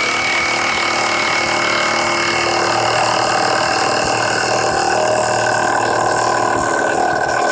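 Milwaukee 2967-20 cordless high-torque impact wrench on speed 3 hammering continuously as it drives a 10-inch by half-inch lag screw. The rapid impacts run with a steady high whine that sags slightly in pitch.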